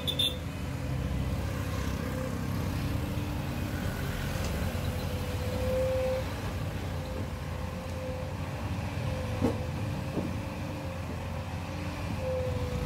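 Volvo crawler excavator's diesel engine running steadily as the machine swings and moves its bucket, with a steady whine above the engine sound and a brief knock about nine and a half seconds in.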